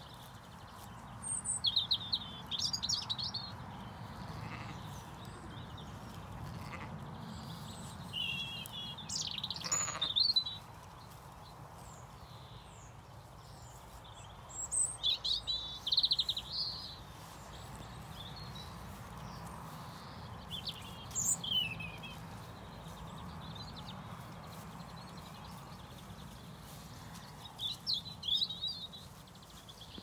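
Songbirds singing in short, bright chirping phrases every five or six seconds, over a steady low background of Zwartbles ewes and lambs tearing and chewing grass.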